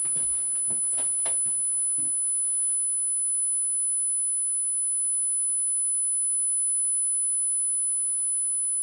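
Steady high-pitched 10 kHz sine test tone from a loudspeaker, held at one level, with a few faint clicks in the first two seconds.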